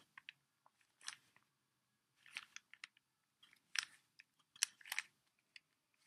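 Stickerless plastic Rubik's cube turned by hand through a move sequence: short clicks and clacks of the layers snapping round, coming in quick clusters every second or so.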